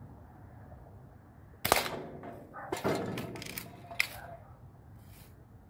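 A Daisy Red Ryder spring-piston BB gun firing once with a sharp crack, followed by a run of smaller clicks, rattles and a metallic ping over the next couple of seconds.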